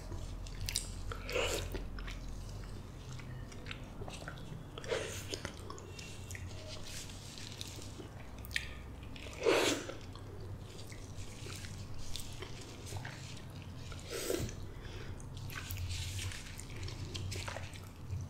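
Close-miked eating of a ripe mango: about five separate bites into the cubed flesh pulled off the skin, with chewing in between, the loudest bite about halfway through.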